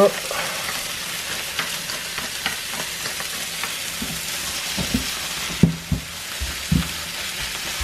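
Spinach, shallot and tomato mixture sizzling steadily in a nonstick frying pan. Black pepper is ground over it at the start, then a silicone spoon stirs it, with a few knocks against the pan in the second half.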